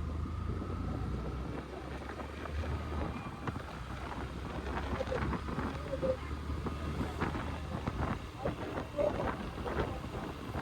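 Motorcycle on the move in city traffic: a steady low engine hum for about the first three seconds, then jumbled road and traffic noise with wind buffeting the microphone.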